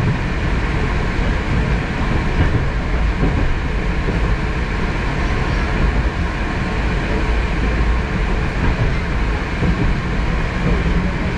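Steady running noise of a Moskva-2018 metro train under way, heard from inside the car: wheels on rail and the train's motors, heaviest in the low end.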